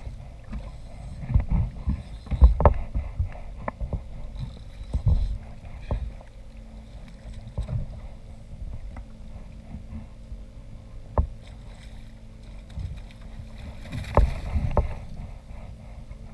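Irregular knocks and thumps on a kayak's hull with a low rumble of water and wind, plus a few sharp clicks; the loudest bumps come about two and a half seconds in and again near the end.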